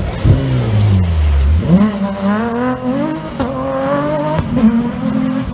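Rally car engine slowing for a hairpin, its pitch falling, then revving hard as the car accelerates away. The pitch climbs in steps, with gear changes about three and a half and four and a half seconds in.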